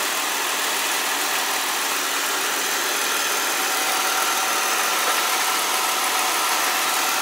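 2003 Ford Explorer XLT's 4.0-litre V6 idling steadily and smoothly with the air conditioning on, heard close up under the open hood. A faint steady whine comes in about halfway through.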